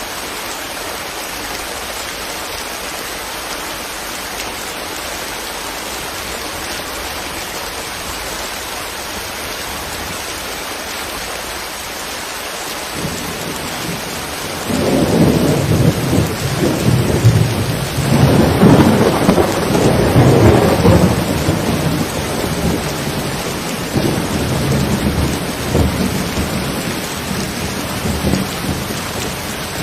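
Steady rain falling, then about thirteen seconds in a long roll of thunder rumbles in under it, loudest for several seconds in the middle and dying back to a lower rumble near the end.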